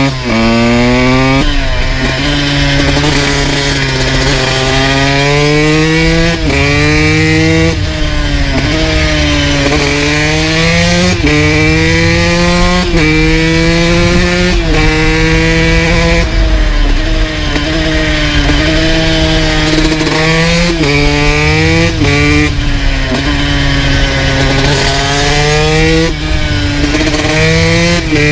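2002 Honda CR125's two-stroke single with a full FMF exhaust, ridden hard: the revs climb quickly, drop sharply at each gear change and climb again, with a few short sags where the throttle is rolled off. A steady wind rumble lies underneath.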